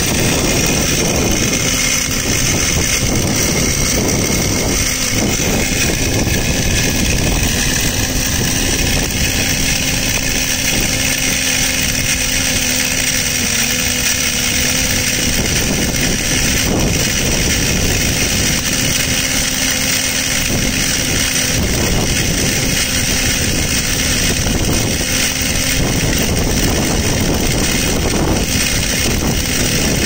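Microduct fiber cable blowing machine running: a steady mechanical drone with a strong hiss and a faint hum that comes and goes.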